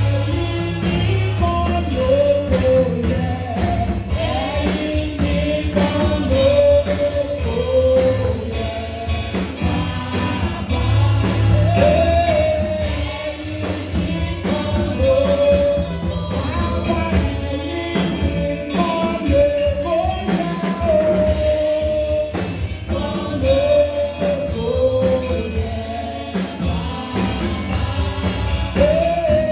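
Gospel praise music: voices singing a song over a band accompaniment with bass and a steady beat.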